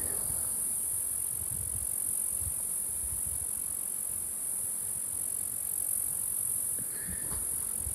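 Background music with plucked guitar, under low, uneven rumbling on the microphone.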